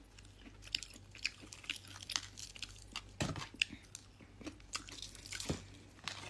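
A person chewing a mouthful of hot food, a string of small irregular clicks of the mouth.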